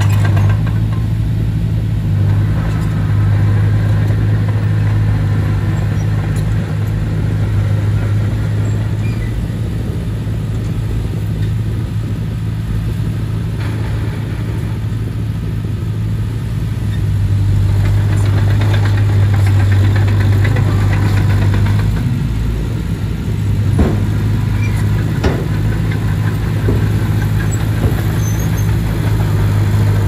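Komatsu D20P bulldozer's diesel engine running steadily, a deep hum with more clatter from a little past halfway, and two brief sharp knocks about two-thirds of the way through.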